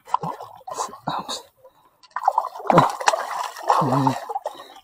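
Hooked amberjack splashing at the water's surface as it is hauled in on the line, in irregular bursts with a short lull about halfway and heavier splashing in the second half.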